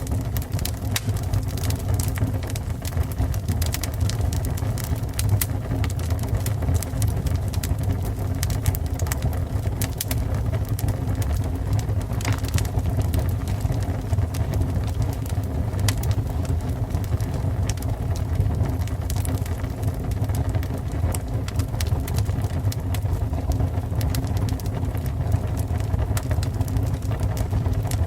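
Fire burning: a steady low rumble of flame with frequent sharp crackles and pops throughout.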